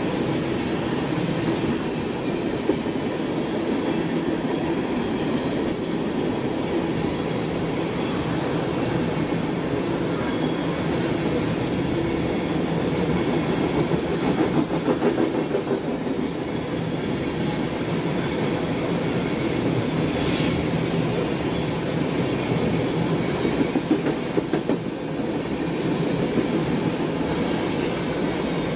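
A freight train of tank cars rolling past at close range: a steady rumble of steel wheels on rail, with clusters of rhythmic clacks as the trucks cross rail joints. Short high-pitched squeals come through about twenty seconds in and again near the end.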